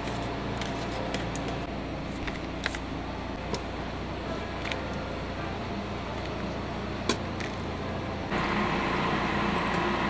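Metal tongs clicking now and then against plastic takeout containers over a steady kitchen hum. About eight seconds in, a louder, steady pouring sound starts: liquid poured from a brass kettle into small porcelain cups.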